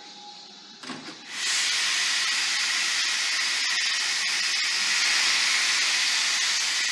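Steam locomotive letting off steam: a couple of short spurts about a second in, then a sudden loud hiss that holds steady.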